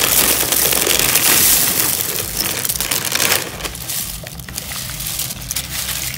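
Dry egg noodles pouring out of a crinkling plastic bag into a slow cooker of broth, a dense rustling for about three and a half seconds. Then quieter sounds of a spoon stirring the noodles into the liquid.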